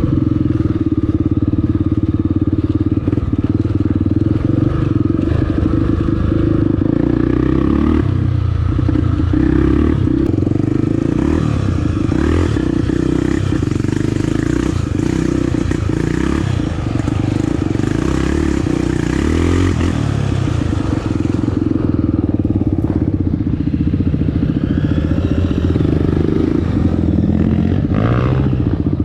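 Honda Tornado trail motorcycle's single-cylinder four-stroke engine running under way, its revs rising and falling with the throttle.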